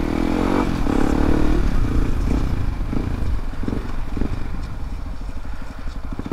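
Yamaha WR155R's single-cylinder four-stroke engine at low speed. The revs rise briefly in the first second or two, then ease off to a low, even putter of firing pulses.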